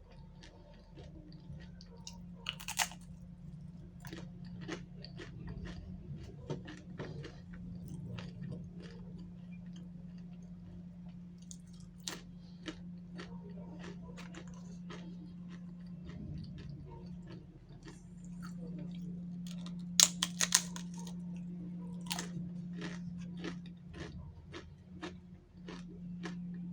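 Close-up chewing and crunching of food, with wet mouth clicks and a few sharp crunches, over a steady low hum.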